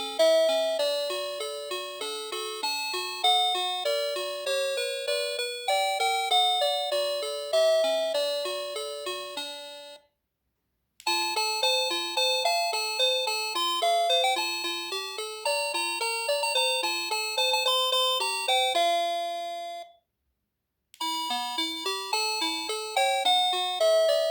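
NX-5776-675 electronic doorbell playing its chime melodies one after another, each note struck and fading. The tune stops for about a second of silence at about ten seconds in and again near twenty seconds, and a new melody starts each time.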